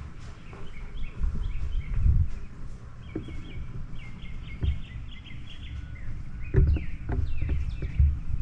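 Birds chirping in a quick run of short calls, over a steady low rumble with a few low thumps.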